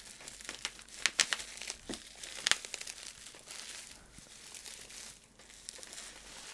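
Thick plastic bubble wrap being crinkled and pulled apart by hand while unwrapping a parcel, with sharp crackles and rustling that thin out after the first few seconds.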